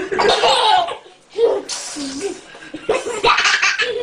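Young children laughing in bursts, turning into continuous belly laughter in the last second.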